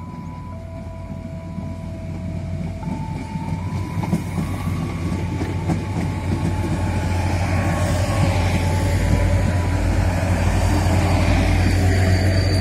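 Prameks diesel multiple unit rolling into the station, its steady engine drone growing louder as it draws closer, with a thin high squeal near the end.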